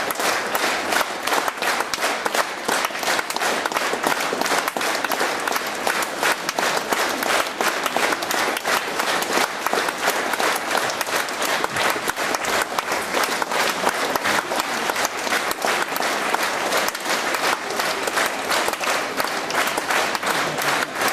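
Audience applauding with dense, even clapping.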